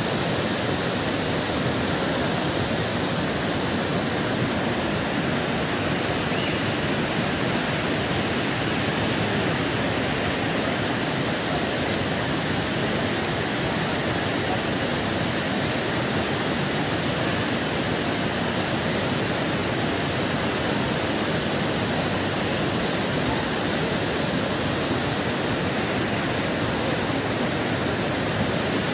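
Steady rushing of a swollen mountain stream in flood, an even noise that does not change.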